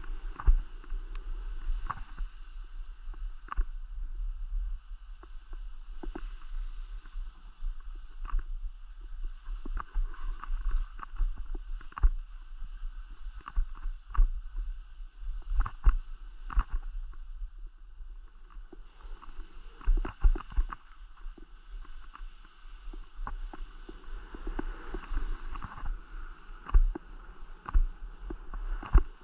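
Skis running over snow with frequent irregular knocks and scrapes, over a steady low rumble of wind on the microphone.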